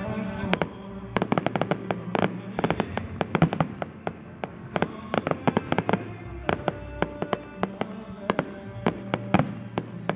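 Fireworks shells bursting overhead in a rapid run of sharp cracks and bangs, many a second at their thickest, with music playing along underneath.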